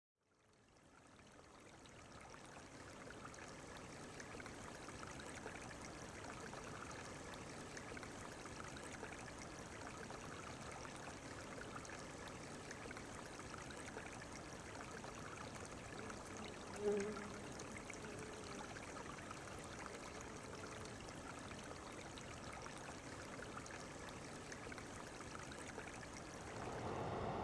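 Steady rush of a shallow river flowing, fading in over the first few seconds. About two-thirds of the way through there is one brief, low pitched sound.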